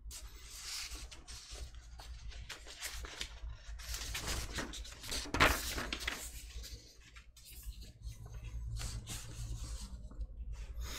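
Faint rustling and handling noises over a low steady hum, with one louder rustle about five and a half seconds in.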